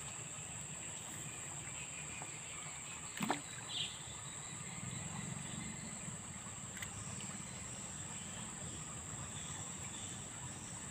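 Steady high-pitched insect drone, with a single sharp swish of a fishing rod being swung about three seconds in, followed by light splashing of water around the line.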